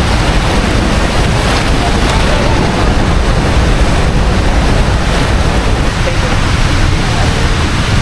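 Loud, steady roar of rushing water, with wind buffeting the microphone.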